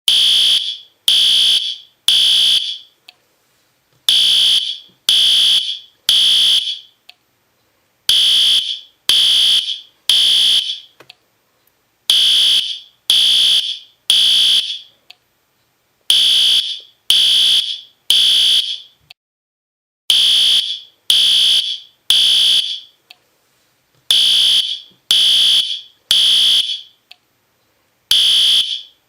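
System Sensor P2R fire alarm horn/strobe sounding its horn in the temporal-3 evacuation pattern. Each group is three loud, high-pitched beeps about half a second long and a second apart, then a pause, and the group repeats every four seconds.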